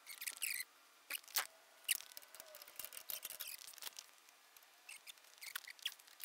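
Light, irregular clicks and clinks of hand tools and small metal parts being handled, a few sharper taps among them.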